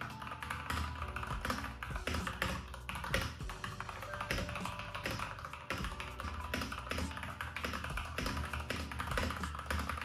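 Continuous typing on a 75% mechanical keyboard with linear red switches, many keystrokes a second. Soft background music plays under the keystrokes.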